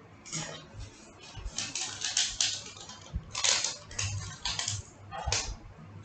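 Newspaper rustling and crinkling in short, irregular bursts as it is handled and folded.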